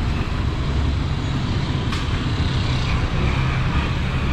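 Street traffic noise: a steady low rumble of motor vehicles on the road, with one sharp click about two seconds in.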